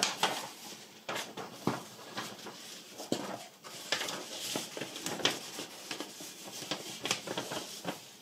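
Paper kit instruction sheet rustling and crinkling as it is handled and its pages are turned, in irregular crackles, loudest right at the start.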